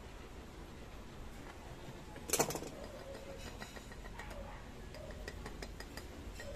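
Handling sounds from filling an aluminium moka pot filter basket with ground coffee: a brief clatter about two seconds in, then faint scattered ticks and taps.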